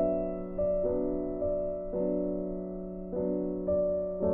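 Background piano music: soft notes and chords struck at an unhurried pace, each ringing and fading before the next.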